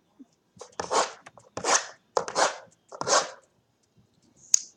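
Cardboard packaging of a trading-card hobby box being opened and handled: four short rasping noises about two-thirds of a second apart.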